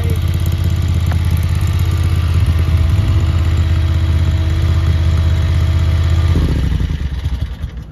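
Mini skid steer loader's small gasoline engine running steadily. About six and a half seconds in it is shut off and winds down to a stop.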